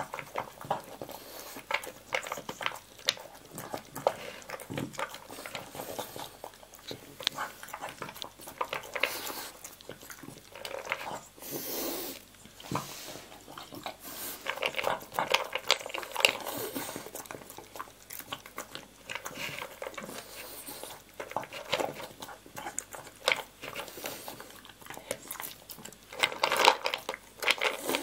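A dog eating dry kibble from a plastic slow-feeder bowl: irregular crunching, chewing and clicking as it noses the food out from between the bowl's knobs, busiest near the end.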